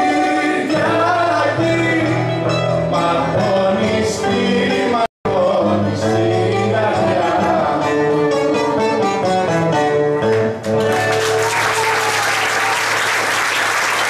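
A live song with voices singing to acoustic guitar accompaniment; the song ends about three-quarters of the way through and the audience breaks into applause. The sound cuts out completely for a split second about five seconds in.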